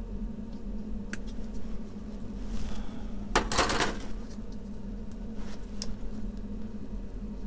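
Grey plastic model-kit sprue handled on a cutting mat: a short clatter of plastic about halfway through, and a few single sharp clicks from sprue cutters snipping parts free. A steady low hum runs underneath.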